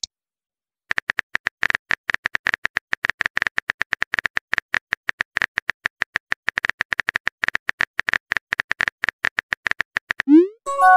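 Phone keyboard tap clicks from a typing sound effect: a rapid, irregular run of short clicks as a text message is typed. Near the end a short rising whoosh and the start of a chime mark the message being sent.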